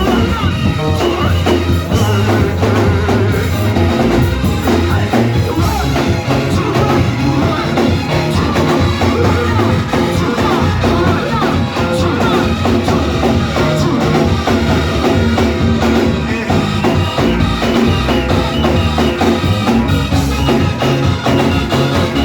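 Church worship band playing loud, upbeat music with a drum kit keeping a steady beat over a strong bass line.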